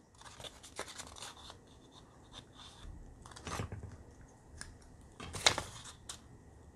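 Plastic lenses of a head magnifier being handled and swapped: scattered clicks and scrapes, the loudest about three and a half and five and a half seconds in.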